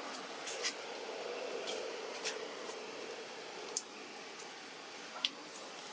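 Quiet background hiss with a handful of short, faint clicks scattered through it.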